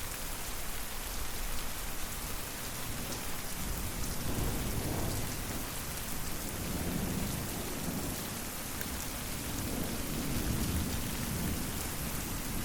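Steady rain falling, with low rolling thunder rumbles swelling about four seconds in and again for several seconds after the middle.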